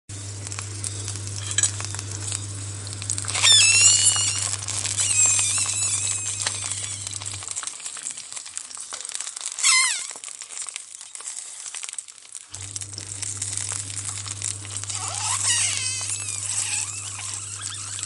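Sausages sizzling and crackling on a hot barbecue grill, with a few brief high-pitched squeals among the crackle. A low steady hum underneath stops for several seconds midway and then returns.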